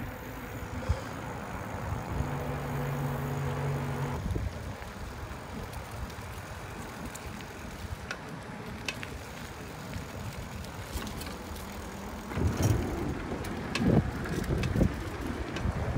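Bicycle riding along a paved trail: steady tyre and riding noise with wind on the microphone, turning louder and more uneven with low rumbling gusts in the last few seconds.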